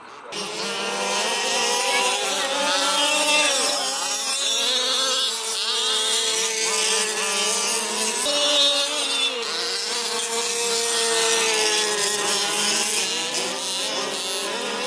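Several 1/5-scale petrol RC buggies' small two-stroke engines buzzing together, each revving up and down as the cars race around the track.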